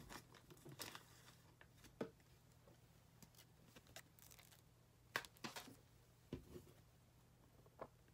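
Faint crinkling and scattered soft ticks of trading cards and clear plastic card sleeves being handled, with the sharpest ticks about two and five seconds in.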